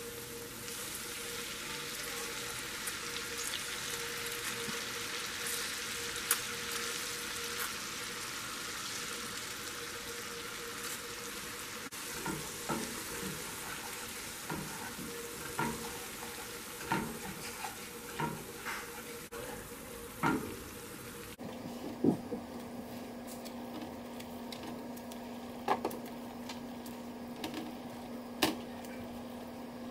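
Garlic butter sauce sizzling in a frying pan, then stirred with a wooden spatula that knocks against the pan. After a cut, a steady low hum with occasional taps.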